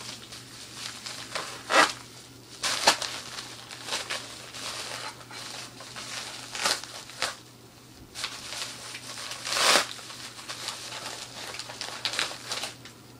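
A shipping package being torn open by hand, its paper and plastic wrapping crinkling and tearing in irregular bursts, the loudest about two and three seconds in and again near ten seconds.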